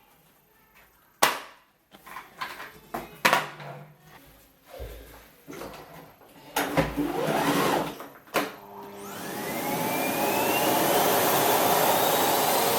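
Several sharp clicks and knocks of plastic parts being handled, then a Miele Blizzard CX1 bagless vacuum cleaner is switched on: its motor spins up with a rising whine about nine seconds in and settles into a loud, steady run.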